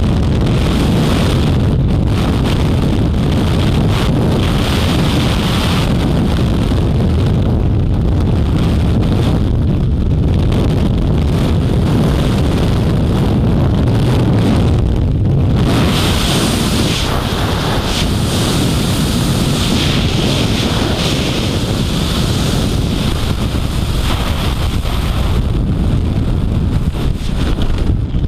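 Steady rushing of the freefall airstream buffeting a helmet-mounted camera's microphone during a skydive, loud throughout.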